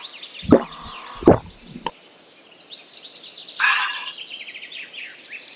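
Small birds chirping and twittering throughout, with two sharp knocks about half a second and a second and a quarter in, a lighter one just after, and a brief rustling noise around four seconds in.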